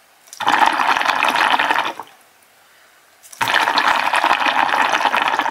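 Two long draws on a hookah, the water in the base bubbling through each pull, with a short quiet gap between them. The hookah is not pulling as well as it should.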